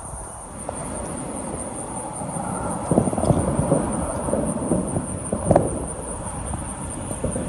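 Twin rear-engined business jet taking off and climbing, its engine noise rising about a second in into a rough, crackling rumble. Crickets chirp steadily underneath.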